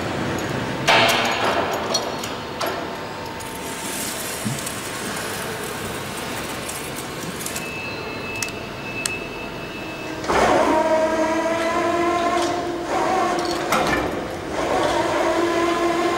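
Steel-shop machinery: a metallic clank about a second in, then general shop noise. From about ten seconds in comes a steady machine whine of several tones as a roller press bears down on a steel plate.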